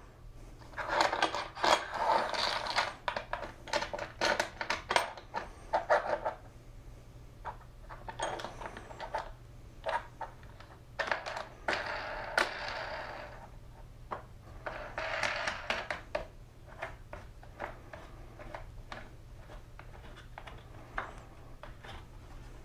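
Handling noise from a table-saw crosscut sled: a hold-down clamp being slid along its metal track and its star knob turned, and a plywood piece shifted against the fence. It comes as several bursts of scraping and rattling, then scattered single clicks.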